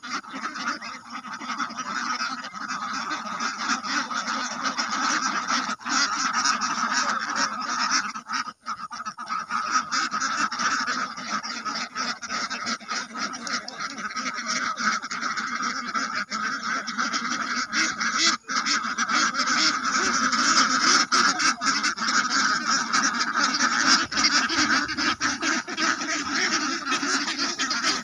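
A large flock of domestic ducks quacking continuously, many calls overlapping into one dense chorus, a little louder in the second half.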